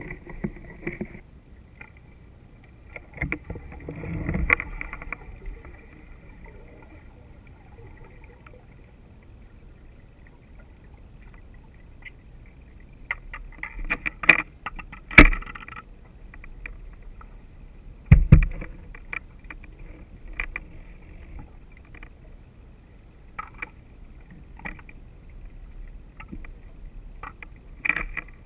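Muffled knocks and bumps of handling a speargun-mounted camera underwater, over a faint steady hum, with a sharp click about fifteen seconds in and a heavy thud about three seconds after it.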